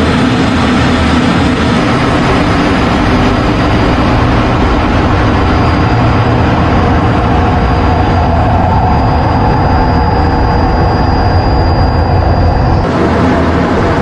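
F-16 fighter jet's engine running steadily in flight, a loud even rush with a steady low drone and a thin high whine. About 13 seconds in the whine drops out and the sound changes abruptly.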